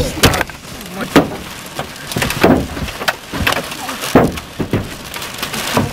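Large hailstones slamming into a truck's body and its wire-mesh hail guard, heard from inside the cab: loud, irregular metallic bangs roughly every second over a steady hiss of falling hail and rain.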